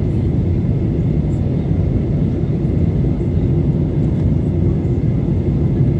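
Steady cabin noise of a Boeing 737-900 on its descent, heard from a window seat over the wing: the rush of airflow and the CFM56-7B turbofans as an even, deep rumble, with a faint thin whine held above it.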